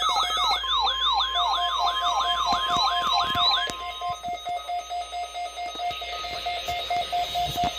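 Several NOAA weather radio receivers sounding their alarms on the weekly test. A siren-like sweep repeats about three times a second and stops about three and a half seconds in. Under it a steady alert tone ends about four seconds in, and a rapid beeping from another receiver carries on throughout.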